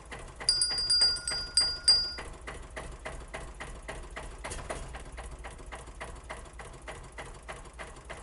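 Several bell-like chimes struck in quick succession, ringing for about a second and a half, with a steady ticking about three times a second running through.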